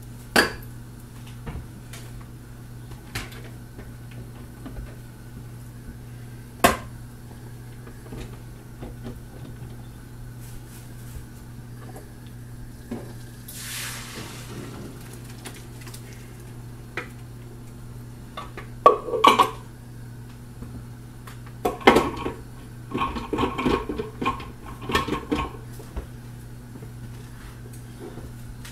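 Metal pots and pans knocking and clattering as cooked scrambled egg dog food is moved from the frying pan into a second pan. At first there are a few scattered knocks, then a busier run of clatter in the last third, over a steady low hum.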